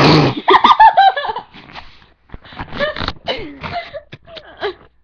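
Girls laughing loudly in shrill, repeated bursts that fall in pitch, starting with a sudden noisy outburst.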